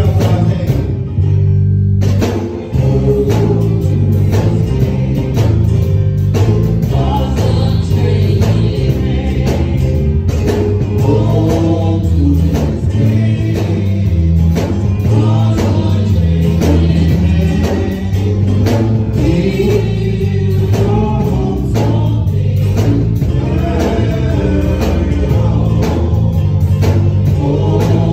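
Gospel music with singing over a bass line and a steady drum beat.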